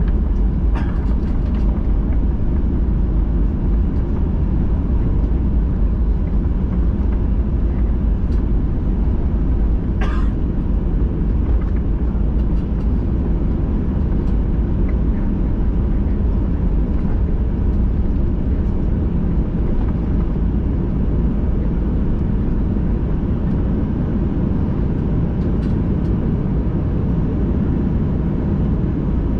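Steady low rumble inside the cabin of a Boeing 737-800 on the ground after landing, its engines idling as it taxis, with a brief click about ten seconds in.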